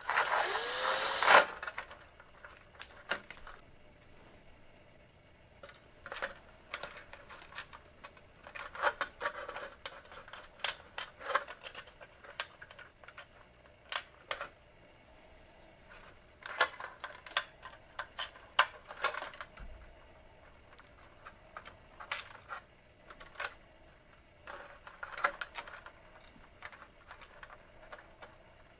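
A power drill runs for about a second and a half and stops, drilling a hole in the shop light fixture for the new ballast. It is followed by scattered light clicks and taps of metal parts being handled.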